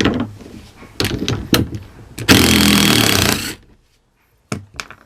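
Handheld power driver run in a few short bursts, then held on for about a second in one loud run that stops abruptly; a few sharp clicks near the end.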